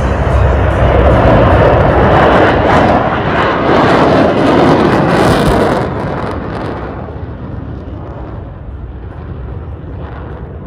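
Jet fighter passing low, a loud jet-engine rush that builds to its peak over a few seconds, then falls away and fades as it moves off, about six seconds in.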